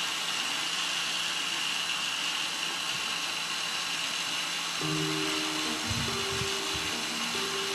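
Countertop electric blender running steadily at high speed, blending pomegranate seeds into juice, with a constant whine. Background music comes in about five seconds in.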